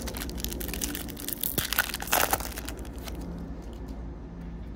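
A Topps baseball-card pack's foil wrapper crinkling as it is torn open by hand, loudest about two seconds in.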